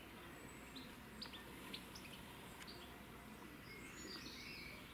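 Faint chirps of small birds: a few short, high notes, mostly in the first three seconds, over a steady low background hiss.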